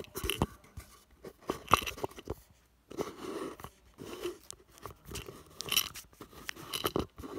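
Handling noise from a phone being pressed against and moved around a kaleidoscope's eyepiece: irregular scraping and small knocks with a brief pause partway through.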